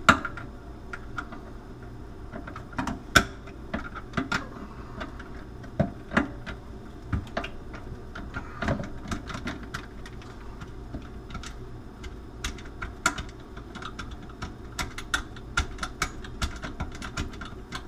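Irregular clicks and knocks of plastic sink drain fittings being handled and unscrewed while the drain tailpiece is taken out.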